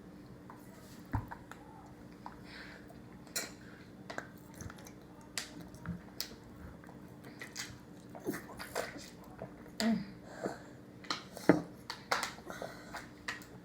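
Close-miked eating sounds: chewing, wet mouth smacks and small sharp clicks, scattered at first and coming thicker and louder in the second half, over a steady faint low hum.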